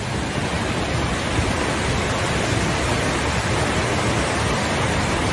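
Muddy floodwater rushing down a river channel in a steady, unbroken wash of noise.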